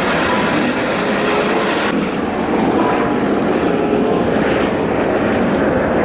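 Eurocopter EC130 helicopter with its rotor and turbine running steadily as it sits at full power and lifts off the pad. The highest hiss drops away about two seconds in.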